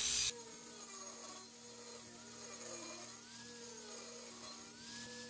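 Angle grinder with a small cut-off disc cutting steel square tubing, its motor whine wavering slowly in pitch as the disc bites and eases off.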